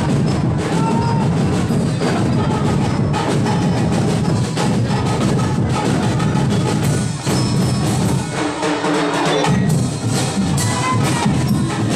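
Loud, drum-heavy Sinulog dance music with a steady, driving beat.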